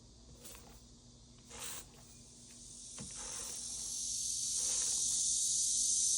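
A few soft paintbrush swishes across a painted surface. Then, about halfway through, a steady high hiss grows gradually louder and drowns them out.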